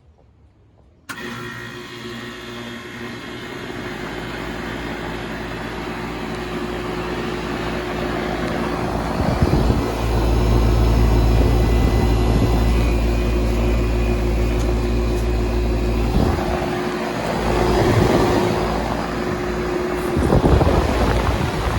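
A 2003 2.5-ton Carrier 38CKC central air-conditioner condenser starting up suddenly about a second in, then running with a steady mechanical hum that grows louder. A deeper low rush swells in about nine seconds in.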